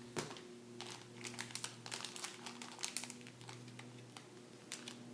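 Plastic blind-bag wrapper crinkling and crackling as it is handled and opened by hand, an irregular run of short, sharp crinkles.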